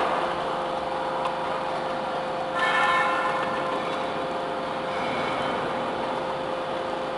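Hydraulic double-ram metal baler running with a steady hum, and a burst of metallic ringing and screeching about two and a half seconds in. A couple of sharp metallic clicks come earlier.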